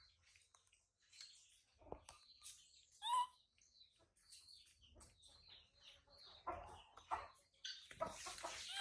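Scattered short, high chirping calls from a small animal, the clearest about three seconds in, among light clicks. Near the end comes a rougher scraping burst, the sound of a knife cutting into an apple.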